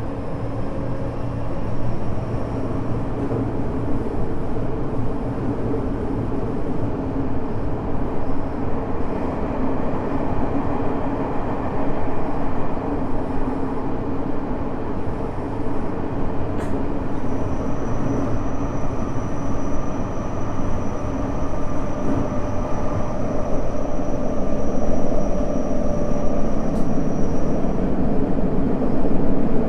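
Cabin running noise of a Tokyo Metro 05 series train with a Mitsubishi IGBT-VVVF inverter, travelling at speed: a steady rumble of wheels on rail with thin whining tones from the traction motors and inverter held over it.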